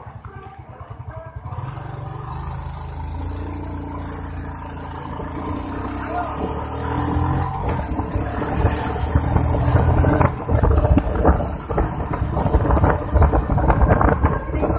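Engine of a large road vehicle approaching and growing steadily louder, then rumbling loudly as it passes close in the last few seconds.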